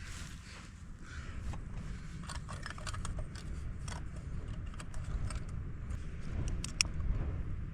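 Wind rumbling on the microphone, with scattered light clicks and clinks of small objects being handled and a couple of sharper clinks near the end.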